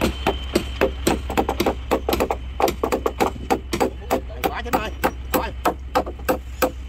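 Hammers striking timber on a wooden boat hull under repair: a rapid, uneven run of sharp blows, several a second, over a steady low hum.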